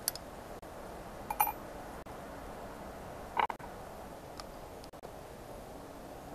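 A few light metallic clinks and taps of small aluminium engine parts and tools being handled: a click at the start, then two clinks about 1.4 and 3.4 s in, each ringing briefly, over faint steady background noise.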